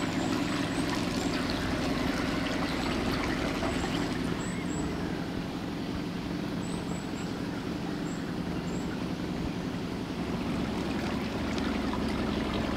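Engine of a small fibreglass canal cruiser (a Microplus 600) running steadily under way.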